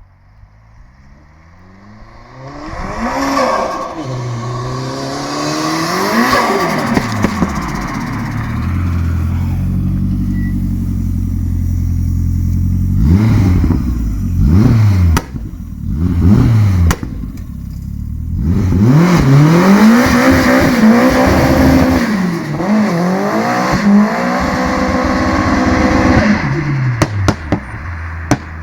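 Turbocharged 1.3-litre eight-valve four-cylinder engine of a 1989 VW Polo 86c revving hard: a long climb, short blips, then revs held high and bouncing up and down. Sharp cracks from the exhaust come between the blips and in a cluster near the end.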